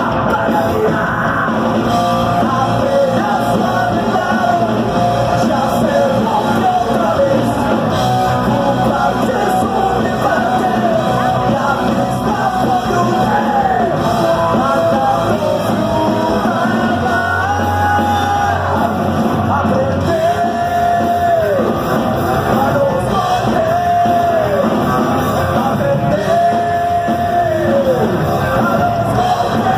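Live rock band, electric guitars and drums, playing loud with a sung vocal line; from the middle of the song the singer holds long notes that slide off at the ends. Heard from within the crowd, in a hall.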